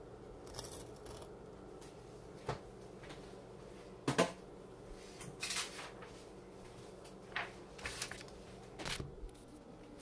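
A table knife scraping and knocking against a toasted bagel and plate while spreading cream cheese: about seven short scrapes and clicks, the loudest about four seconds in, over a faint steady hum.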